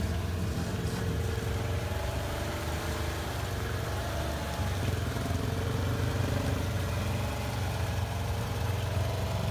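Off-road vehicle engine idling steadily.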